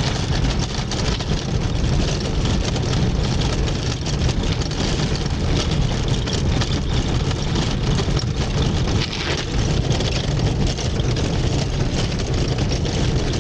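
A car driving on a rough road, heard from inside the cabin: steady engine and tyre noise with many small knocks and rattles.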